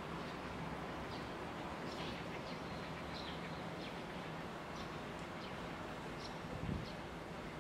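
Steady outdoor background noise with small birds chirping in short, scattered calls, and one dull thump about two-thirds of the way through.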